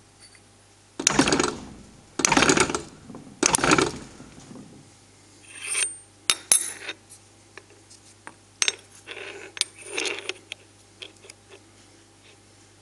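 No. 4 fly press coming down on a 4 mm steel gate hinge in a V-block to bend its welded tabs apart: three heavy, ringing metal blows about a second apart. These are followed by lighter metallic clinks and scrapes as the hinge is shifted in the block.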